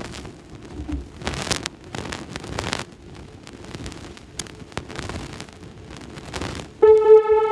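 Rustling and short hissy bursts of handling at a DJ turntable and mixer setup. Near the end, a loud, steady electronic tone with overtones starts abruptly.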